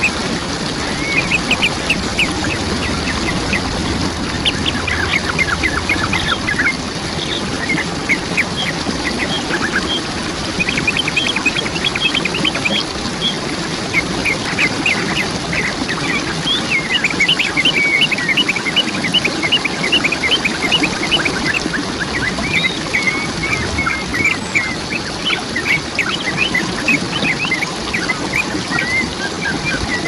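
Birds calling in quick runs of short, rapid calls, in repeated bouts, over the continuous rush of a waterfall.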